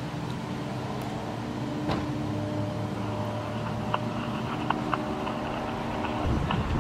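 Steady hum of idling police SUV engines, with a few faint clicks.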